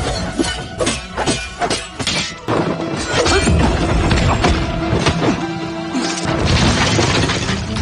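Dramatic background music over fight sound effects: a rapid run of sharp hits and thuds in the first two and a half seconds, then crashes and thuds as bodies are thrown.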